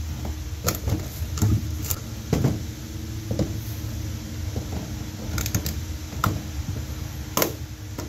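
Plastic RV power cord hatch being handled as the cord is worked into it and the lid closed: a string of irregular clicks and knocks, over a steady low hum.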